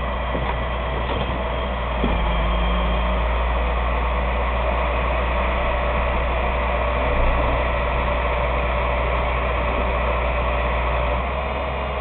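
Engine of a heavy lifting machine running under load as it hoists a van. Its low drone grows louder about two seconds in and eases back near the end.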